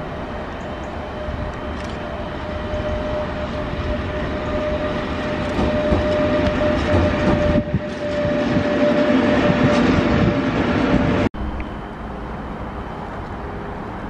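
Freight train of tank-container wagons hauled by an electric locomotive running past, with rolling noise and a steady whining tone, growing louder toward the middle. About eleven seconds in it cuts off abruptly to a quieter, steady rail-yard sound as another electric locomotive approaches.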